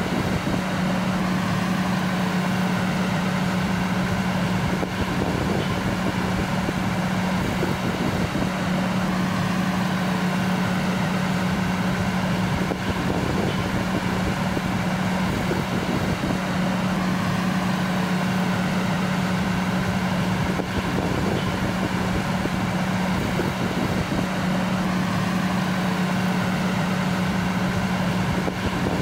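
Fire engine idling with a steady low hum.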